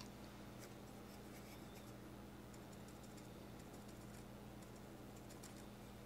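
Near silence: faint, scattered scratchy ticks of a small paintbrush dry-brushing a plastic model cockpit part held in the fingers, over a low steady hum.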